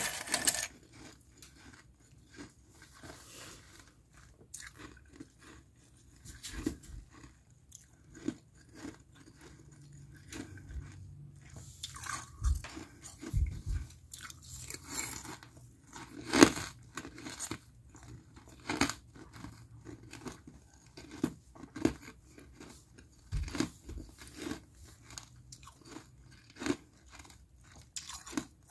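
Thin flaky freezer frost being crunched and chewed in the mouth: irregular crisp crunches with short pauses between bites, the loudest a little past halfway through.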